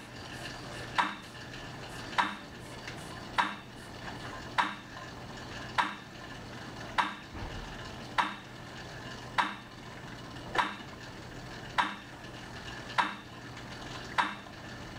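Sharp clicks repeating evenly, about every 1.2 seconds (roughly 50 a minute), over a low steady hum. This is the pace of a steady pedalling cadence in a cycle ergometer test.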